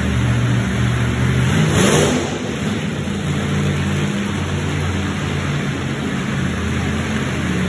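Monster truck engines running and revving, their pitch rising and falling, with a brief loud burst about two seconds in.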